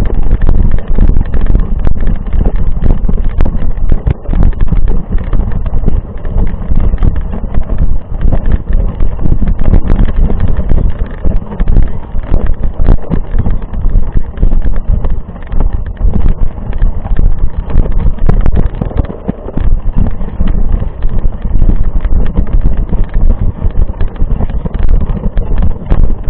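Mountain bike riding over a rough trail: wind buffeting the microphone, with a steady stream of rattles and knocks from the bike jolting over the ground.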